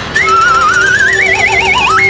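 Electronic sound effect: a warbling tone that climbs steadily in pitch over about two seconds above a steady low note, then jumps up and cuts off.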